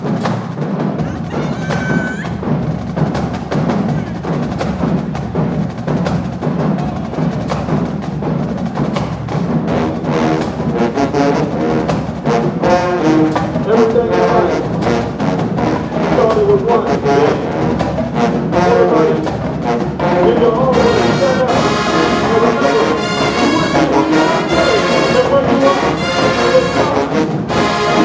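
Marching band playing: a drumline beat with brass joining in and building, the full horn section coming in louder about two-thirds of the way through.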